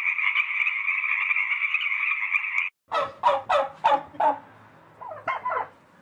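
Frog croaking, a continuous dense call that cuts off abruptly about two and a half seconds in. A turkey then gobbles, a quick rattling run of about six calls, followed by a few softer calls near the end.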